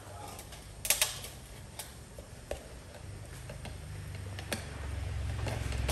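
A spoon clicking and tapping against the pot and seasoning jars: a few separate sharp clicks, the loudest about a second in. A low hum builds up near the end.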